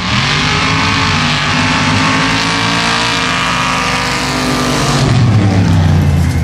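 Formula Offroad sand drag car launching and running flat out, its race engine at full throttle over the hiss of sand and dirt thrown from the tyres. About five seconds in, the sound changes abruptly to a deeper, steadier engine note.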